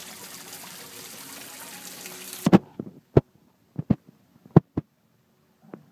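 Water trickling and splashing from a koi pond's waterfall, a steady wash that cuts off abruptly about halfway through. A series of about seven short, loud knocks and thumps follows, irregularly spaced, the loudest near the cut and a second and a half later.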